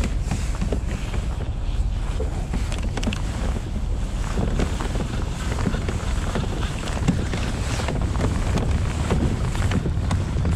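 Wind buffeting the microphone, a steady low rumble, with light clicks and rustles from hands handling the rod and lure close by.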